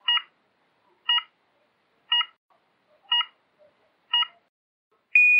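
Electronic start countdown beeper of a canoe slalom start: five short beeps one second apart, then a long steady tone beginning near the end, the signal to go.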